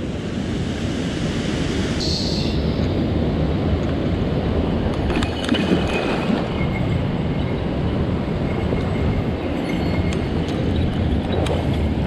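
Mountain stream water rushing over rocks in a steady, loud noise, with a few small clicks near the end.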